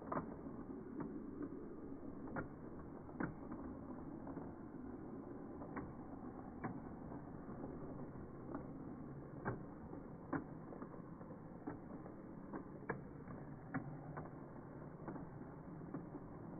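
Model train freight cars rolling along the track, slowed down: a steady low rumble with sharp clicks about once a second as the wheels pass over the rail joints.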